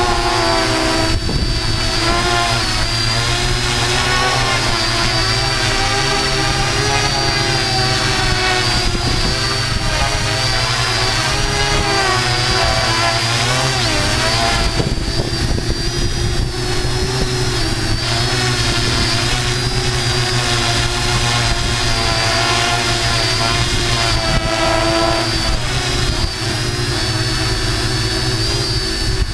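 Multirotor drone's electric motors and propellers whirring steadily, heard from the drone itself. Several pitches waver slightly up and down as the motors adjust, over a low rumble.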